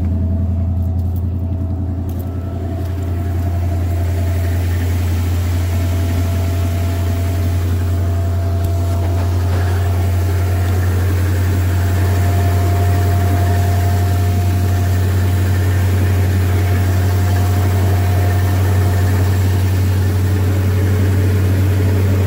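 1978 Chevy K30 one-ton truck's V8 idling steadily just after a cold start, on its cold fast idle, getting a little louder about halfway through.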